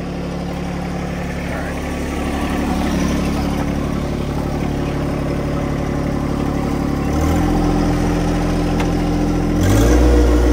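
Tractor engine running steadily at the loader and box blade. It gets louder and its pitch shifts in two steps, about seven and ten seconds in, as it takes on more throttle or load.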